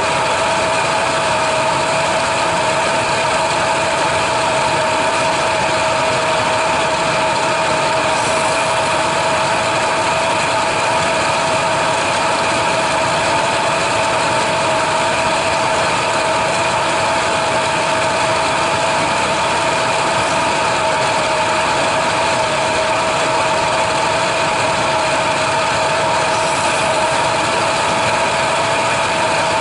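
Chevrolet S10 pickup engine idling steadily, with a steady whine over the running noise.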